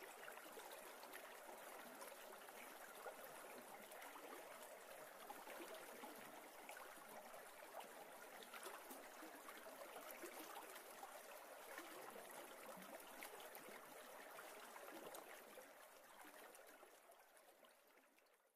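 Faint, steady rush of a shallow river flowing over a low line of stones, fading out over the last few seconds.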